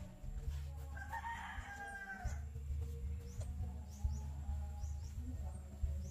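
A rooster crowing once, about a second in.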